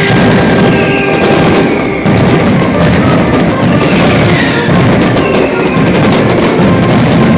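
Mascletà firecrackers going off in a dense, unbroken barrage of bangs, with several short falling whistles cutting through it.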